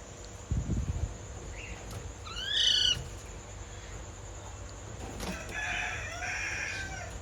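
Ringneck parakeets calling: a short, rising squawk about two and a half seconds in, the loudest sound, then a longer, rougher chattering call for nearly two seconds near the end. A brief low rustle comes about half a second in.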